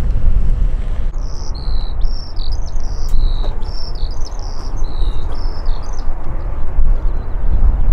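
A songbird singing a run of short, clear notes that alternate between two or three pitches, starting about a second in and stopping about six seconds in. Under it, a loud, uneven low rumble.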